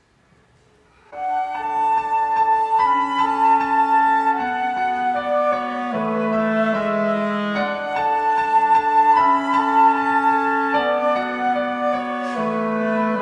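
A small instrumental ensemble starts playing about a second in. A flute carries the melody in held notes over a keyboard accompaniment, the introduction before the choir sings.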